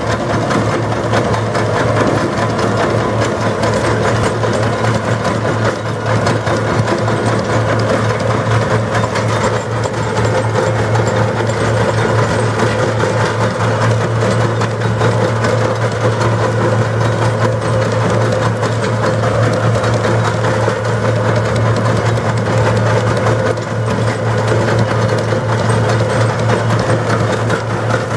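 Farm tractor engine running steadily with a constant low hum while it pulls a nursery uprooter through the ground, lifting out old currant and gooseberry stumps.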